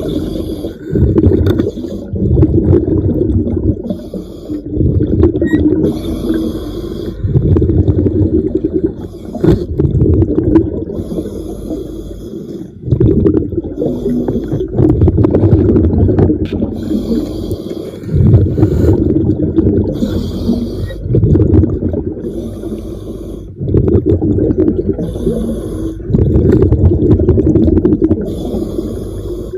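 Scuba diver breathing underwater through a regulator: hissing inhalations alternating with loud, rumbling bubble exhalations, repeating every few seconds.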